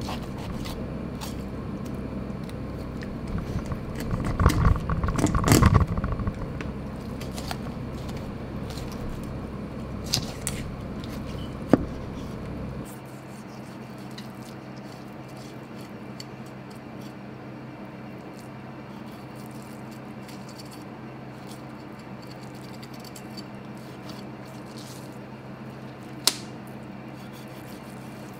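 Kitchen knife cutting and scraping through a splendid alfonsino (kinmedai) on a cutting board while filleting it, the blade rasping along the bones, loudest about four to six seconds in. A few sharp clicks come later, and a steady low background hum drops away about halfway through.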